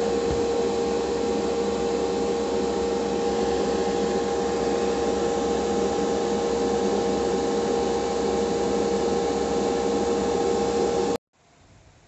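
Hobby spray booth extractor fan running steadily: a loud airy rush with a steady motor hum, cutting off abruptly about eleven seconds in.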